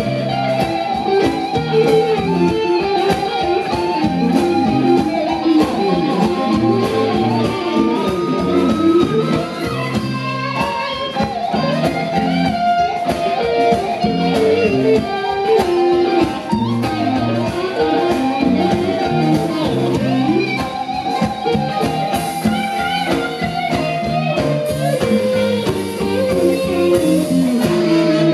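Live blues-rock band playing, with an electric guitar taking a lead line full of pitch bends and slides over drums and bass.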